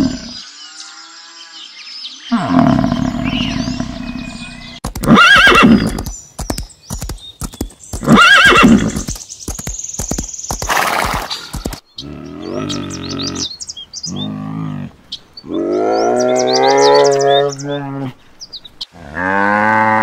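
Horse whinnying and neighing several times, the calls rising and falling in pitch, with noisy stretches between them. Near the end a cow begins to moo.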